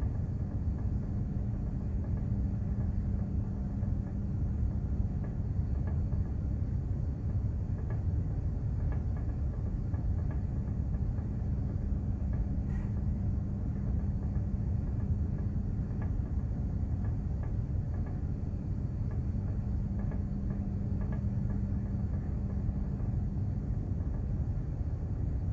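Steady low rumble aboard a container ship under way, with a steady hum that stops near the end.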